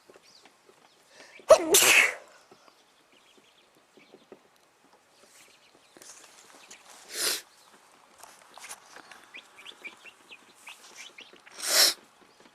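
Chickens sneezing: three short, sharp sneezes, the first about a second and a half in and the loudest, one about seven seconds in, and one near the end, with faint scratchy ticks between them. The uploader puts the sneezing down to allergies.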